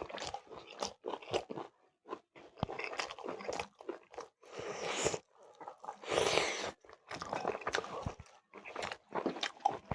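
Close-up eating sounds of a person biting and chewing chicken leg curry with rice: many short wet mouth clicks and smacks, with two longer, noisier sounds about four and a half and six seconds in.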